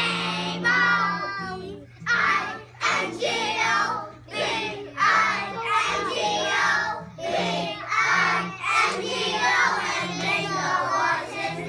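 A group of young children singing together over a recorded backing track with a steady, repeating bass line.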